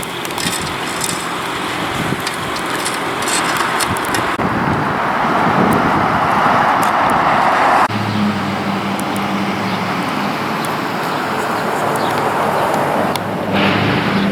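Road traffic noise, with a vehicle passing that swells to its loudest and then cuts off abruptly, followed by a steady low engine hum.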